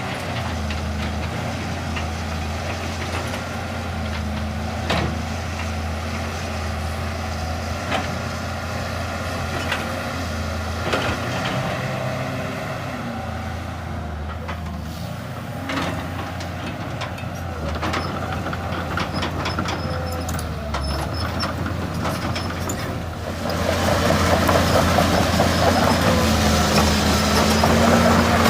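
Heavy diesel engine running steadily at low revs, with scattered knocks and clanks. The engine grows louder near the end.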